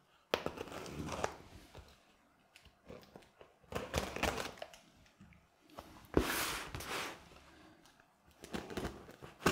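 Packing tape on a cardboard box being slit open with a small blade, in about four short scraping, ripping strokes with pauses between, the loudest about six seconds in.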